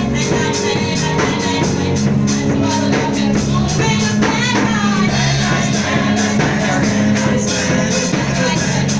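Music with singing over a steady beat with percussion.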